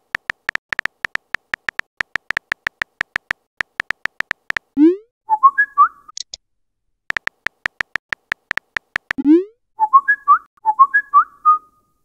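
Rapid key-tap clicks of a phone keyboard, then a rising swoop and a short run of whistled chirps; a brief high hiss follows, then the key-tap clicks start again and end in another swoop and run of whistled chirps.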